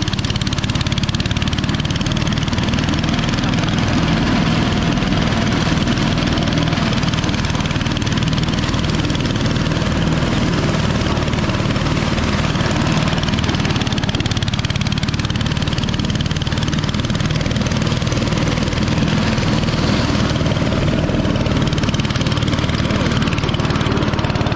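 Engine-driven rice-processing machine running steadily and loudly, its engine drone mixed with the rattle and rush of the working machinery.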